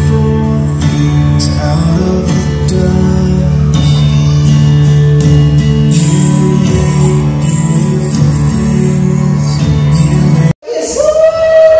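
Background music with guitar and singing that cuts off abruptly near the end, followed by a different passage with long held, sung notes.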